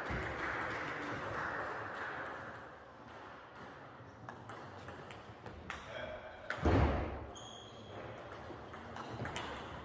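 Celluloid-type table tennis ball clicking off rubber-faced bats and the tabletop in a rally, a string of sharp taps in a large echoing sports hall. A louder, deeper thud comes about two-thirds of the way through.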